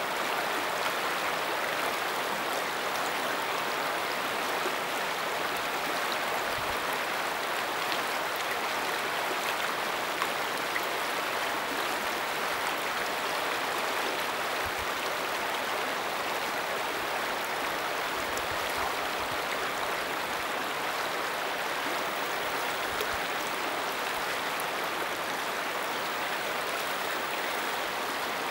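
Fast-flowing river water rushing steadily past rocks in the current.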